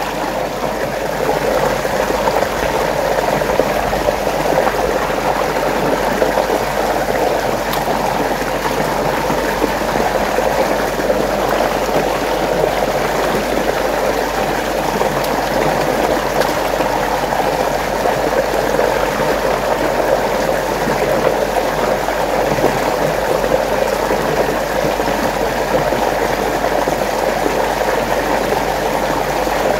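Water churning steadily in a whirlpool, a continuous rushing, gurgling flow.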